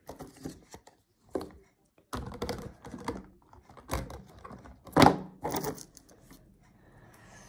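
Fidget toys being handled and set down on a wooden tabletop: a run of soft thunks and knocks at uneven intervals, the loudest about five seconds in as a silicone pop-it is brought onto the table.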